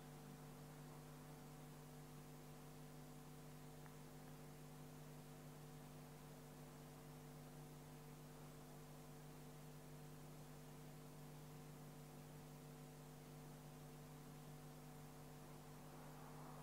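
Near silence with a faint, steady electrical hum in the recording.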